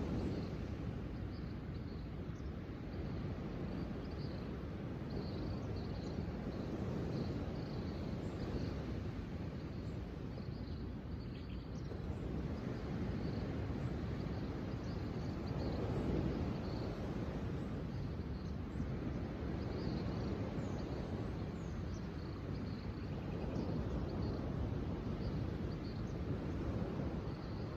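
Outdoor nature ambience: a steady low rushing noise that swells gently now and then, with faint, short high-pitched chirps scattered through it.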